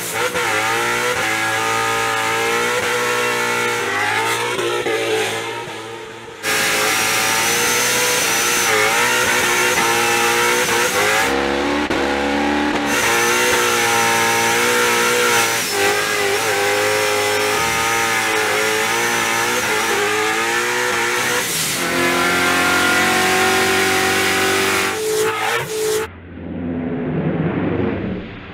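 Ford Mustang RTR drift car's V8 engine revving hard, its pitch rising and falling repeatedly as it is driven sideways, with tyre squeal. The sound jumps abruptly a few times between shots.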